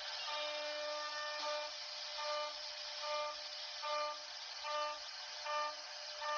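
CNC router carving a wooden door panel: a steady high hiss, with a tone at one fixed pitch that starts and stops about once a second in pieces of different lengths.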